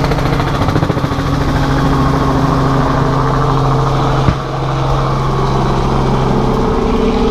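A motor vehicle's engine running steadily, with one sharp click about four seconds in.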